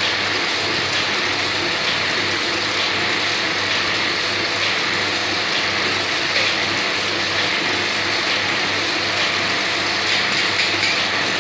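Large-format banner printer running as it prints: a steady mechanical whir as the print-head carriage shuttles back and forth across the banner.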